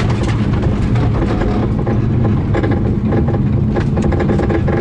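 Turbocharged rally car engine running at a steady pitch, with many short sharp clicks and knocks over it.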